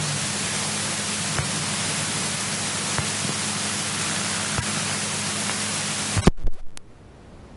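Steady cabin noise from a Cessna 172 Skyhawk's engine, heard as a hiss with a low hum. About six seconds in it stops abruptly with a few sharp clicks, leaving only a faint hiss.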